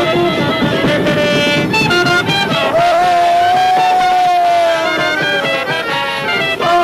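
Music with several instruments: a busy rhythmic passage, then one long held note of about three seconds that bends slightly up and back down before the melody moves on.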